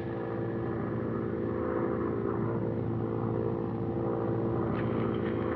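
Steady drone of a propeller airplane's engines heard in the cockpit: an even hum with several held tones that does not change.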